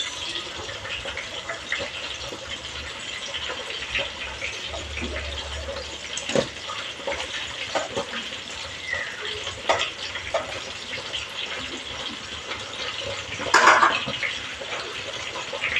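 Fish frying in oil in a pan: a steady sizzle, with scattered clicks and scrapes of a metal spatula turning the fish and one louder knock near the end.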